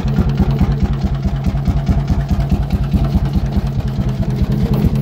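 A Målilla 35 hp hot-bulb crude oil engine running steadily after starting, with a loud, even, rapid beat.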